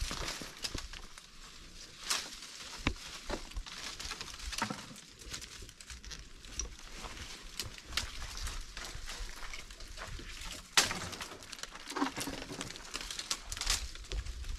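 Oak leaves rustling and twigs and branches snapping and creaking as a man climbs through the canopy of an oak tree, with irregular sharp cracks, the loudest about eleven seconds in.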